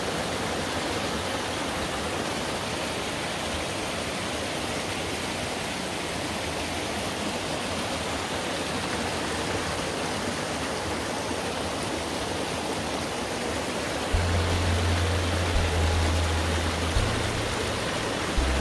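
Mountain valley stream, water rushing and splashing steadily. About fourteen seconds in, a low bass line of music comes in, moving in steps from note to note.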